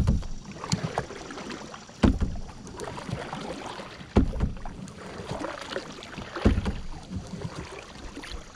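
Canoe paddle strokes: the blade catching and pulling through the water about every two seconds, four strokes in all, each a sudden splash that trails off into water swirling and dripping.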